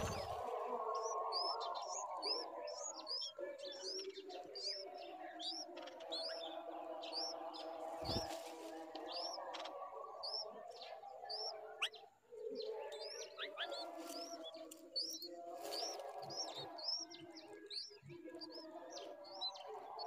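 Bulbul nestlings begging: short, high chirps repeating about twice a second, with a lower, steady background sound beneath.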